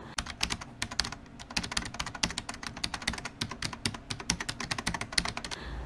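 Fast computer-keyboard typing: a quick, uneven run of key clicks, several a second.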